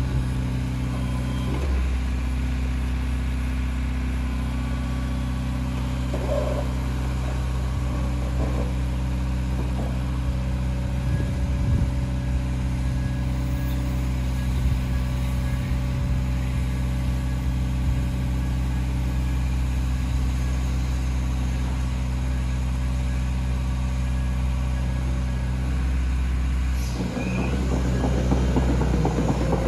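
Diesel engine of a JCB JS190LC tracked excavator running steadily while the boom and bucket are worked hydraulically. About 27 seconds in the sound gets louder and rougher.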